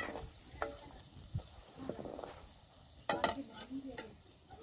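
Curry masala sizzling in oil in a steel kadai, stirred with a steel ladle that clinks and scrapes against the pan, with two sharp clinks close together about three seconds in.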